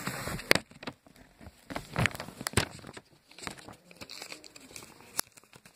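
Taped packaging being torn and crumpled open by hand: irregular crinkling and tearing with a few sharp snaps.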